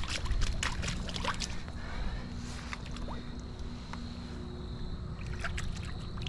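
Boots crunching and splashing on wet gravel at the river's edge, with sharp clicks and crackles in the first second or so. Then soft sloshing and swirling of shallow water as a carp is lowered in and released, over a steady low hum.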